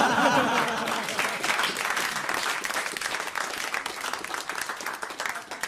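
Studio audience applauding, with laughter in the first second, the applause fading away near the end.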